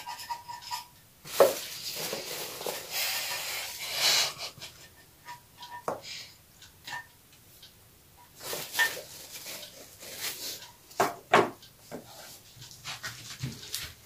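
Biscuits being handled and laid one by one onto a cream layer in a glass baking dish: a spell of rustling in the first few seconds, then scattered light taps and clicks.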